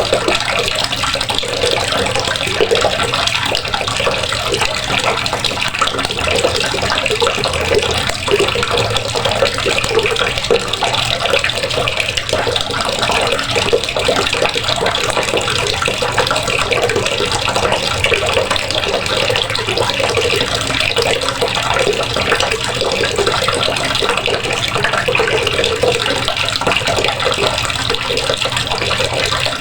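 Water running steadily from a faucet, splashing continuously into the basin below.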